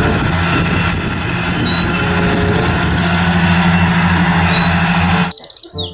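Tractor engine running steadily. It cuts off suddenly about five seconds in, and short chirping glides follow.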